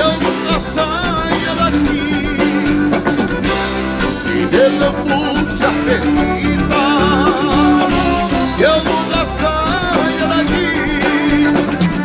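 Live gaúcho dance music: a piano accordion playing the lead with wavering held notes over electric guitar, bass guitar and drums keeping a steady beat.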